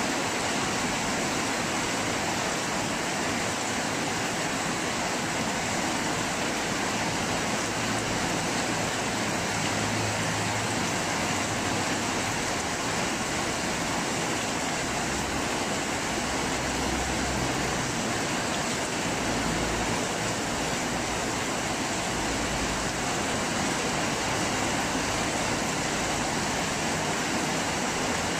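Heavy rain pouring steadily in a storm, a dense, even hiss, with a few short low rumbles in the second half.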